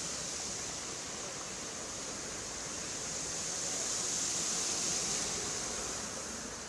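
Steady rushing noise of floodwater, swelling slightly about four seconds in.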